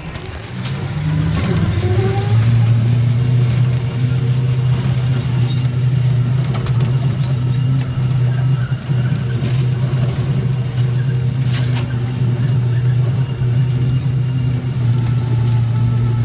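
Children's caterpillar ride running: a steady low motor drone that builds up over the first two seconds, then holds.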